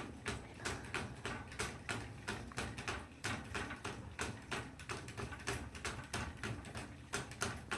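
Toy poodle lapping water from a bowl, an even run of clicks about three a second.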